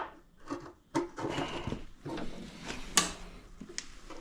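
Handling noises while a spark plug test is set up on a small engine: a few sharp clicks and knocks, the clearest about a second in and three seconds in, amid light rustling.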